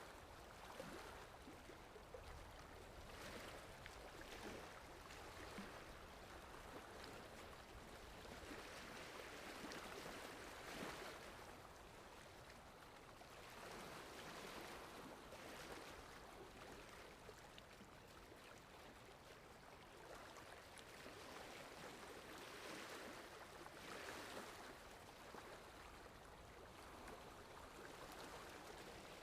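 Faint sea surf: a steady wash of water that swells and ebbs every few seconds as waves break and draw back.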